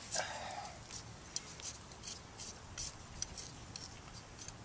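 A hand digging and scraping in loose garden soil: irregular soft scratchy rustles with a few sharp ticks.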